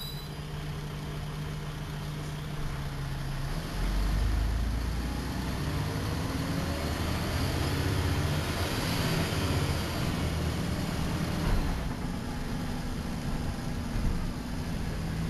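Dennis Trident double-decker bus's diesel engine heard from inside the passenger saloon: running steadily at first, then pulling away under load about four seconds in, with a deep rumble that carries on as the bus gets going.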